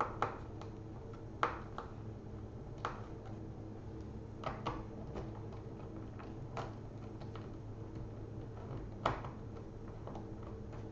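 Scattered light clicks and taps of a small screwdriver and small screws and plastic parts being handled while a laptop's screen bar is unscrewed, about ten in all at uneven gaps. Under them runs a steady low electrical hum.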